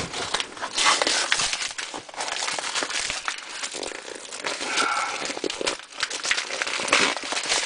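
Packaging crinkling and rustling with many small irregular clicks and crackles as a newly delivered engine is unpacked from its shipping box.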